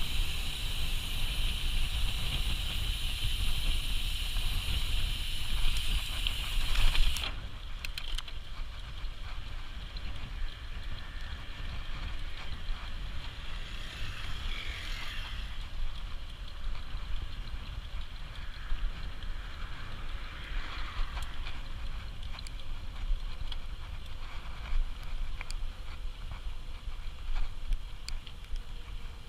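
Mountain bike ride: wind rumbling on the microphone over tyre and trail noise. A loud steady hiss in the first seven seconds cuts off suddenly.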